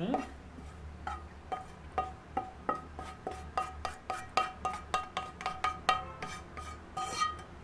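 Slotted wooden spatula knocking and scraping roasted wheat flour out of a tilted pan onto a stainless steel plate. It makes a run of sharp knocks, about three a second, and each knock rings metallically at the same two pitches.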